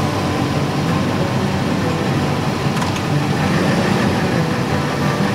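Ford pickup truck's engine running steadily at low speed as the truck rolls slowly forward.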